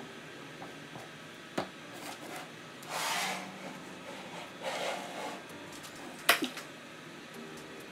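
Wooden blower-housing parts handled on a workbench: a particleboard base sliding and rubbing over the plywood scroll twice, with a light knock about a second and a half in and a sharp wooden knock just after six seconds as the board is set down.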